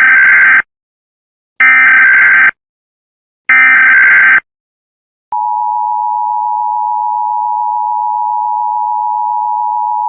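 Emergency Alert System-style alarm. Three loud, harsh bursts of digital data tones, each about a second long with a second's gap (the SAME header). About five seconds in, the steady two-tone attention signal begins and holds.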